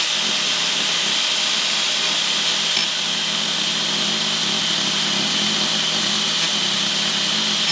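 Handheld angle grinder running steadily with a high whine, its disc grinding down the deformed end of a boat's rudder shaft.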